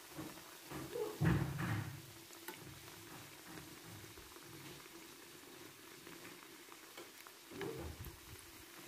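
Soft thumps and knocks of kitchen handling, a cluster about a second in and another near the end, over a faint steady hum.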